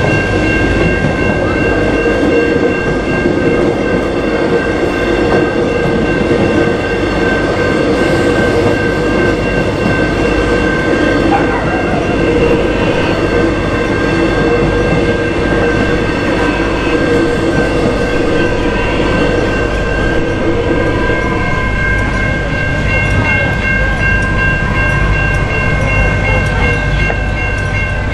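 Suburban electric train rolling over a level crossing, wheels and motors rumbling, while the crossing's warning bells ring steadily throughout. The train noise dies down about three-quarters of the way through, leaving the bells.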